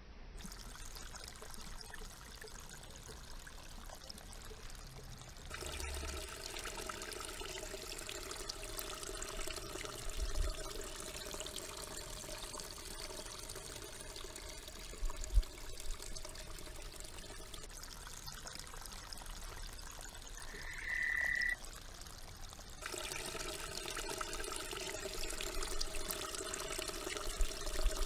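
Frogs calling in a dense, steady chorus over trickling, sloshing water. The chorus comes in abruptly about five seconds in, thins out for a few seconds past the middle, and comes back just as abruptly.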